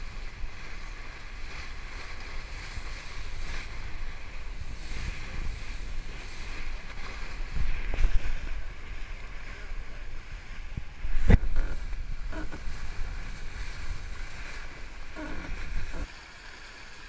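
Wind buffeting the microphone and water rushing past the hull of a yacht sailing fast through choppy sea, in uneven gusts. There is a sharp thump about eleven seconds in, and the sound is quieter for the last second.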